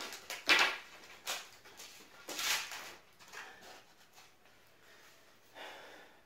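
Wooden bed slats being pressed down by hand onto a platform bed frame's Velcro strips: several short scraping, rustling sounds, most in the first half.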